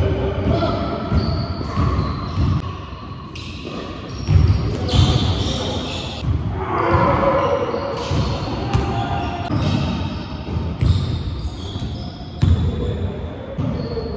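A song with a singing voice plays throughout, and a basketball bounces on a hardwood gym floor several times, giving short low thuds.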